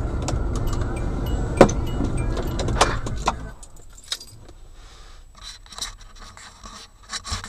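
A car engine idling, heard from inside the cabin, with scattered sharp clicks, is switched off about three and a half seconds in. After that only small clicks and rattles are left, typical of the ignition keys jangling.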